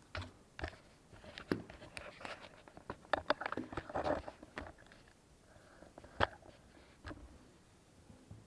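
Irregular clicks, taps and light clatter of small hard objects being handled and set down on a work surface, with one sharper knock about six seconds in.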